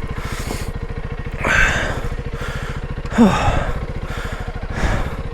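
A Honda CRF300L Rally's single-cylinder engine idling with a steady, fast beat. Heavy breaths puff close to the microphone every second or so, with a short grunt about three seconds in.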